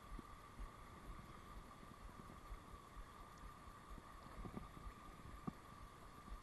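Faint steady rush of water spilling over a low weir, with a few soft knocks in the second half.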